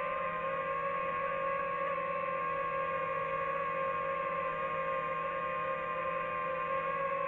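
DJI FPV drone's motors and propellers whining steadily in flight: a pitched hum with a slight waver in pitch.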